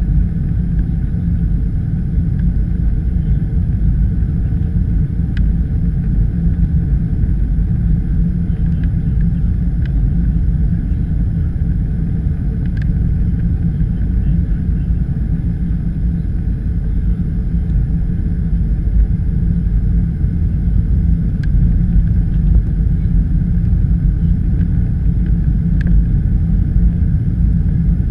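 Steady low rumble of cabin noise inside a Boeing 737-700 descending on approach with flaps extended, from its engines and the air rushing past, with a few faint ticks now and then.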